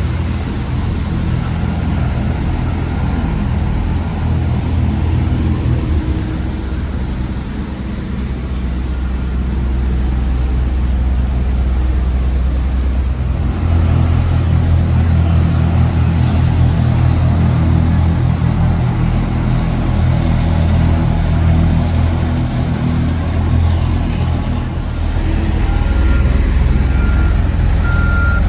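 Heavy engines of road-paving machinery running steadily, getting louder and deeper about halfway through. A reversing beeper starts near the end.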